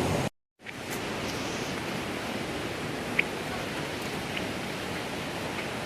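Steady rushing noise of flowing water from the falls and stream, cut off by a brief dropout just after the start, with one small click about three seconds in.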